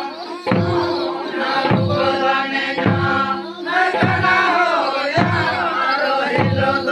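A group of men chanting a Santhali Karam dance song in unison. A double-headed barrel drum (madal) beats under it, one heavy low stroke about every second and a quarter.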